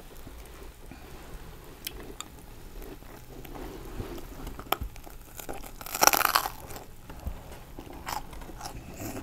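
Biting into and chewing a big Philly cheesesteak on toasted French bread: scattered crunches and chewing, with one loud crunch of the crust about six seconds in.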